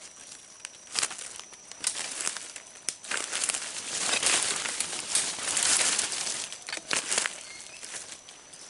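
Irregular rustling and crinkling with sharp crackles, loudest about four to six seconds in.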